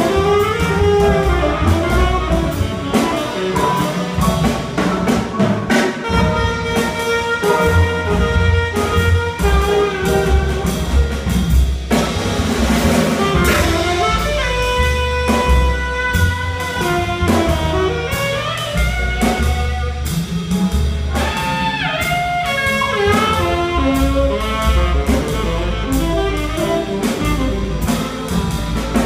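Live jazz: a tenor saxophone solo, a fast run of notes, over upright bass and drum kit with steady cymbal strokes.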